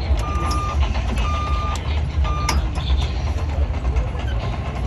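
A vehicle's backup alarm beeping about once a second, three beeps in all, the last one cut short about two and a half seconds in, over a steady low rumble.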